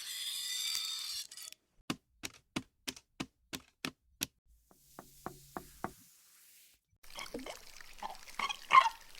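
A short hiss, then a run of sharp, evenly spaced knocks, about three a second, followed by a few softer knocks; near the end comes a busier jumble of sounds with one loud hit.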